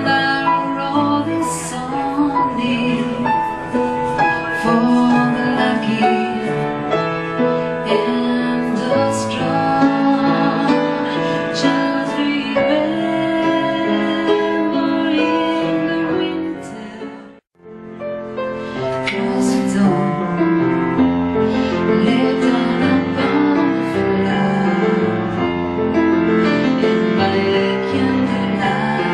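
Solo piano playing a slow ballad, with a woman's singing voice. The music cuts out for an instant a little past halfway, then the piano starts again.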